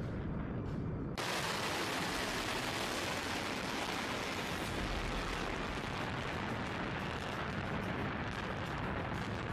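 Missile rocket motors at launch: a low rumble that switches suddenly about a second in to a loud, steady roar, with a crackle coming through in the last seconds.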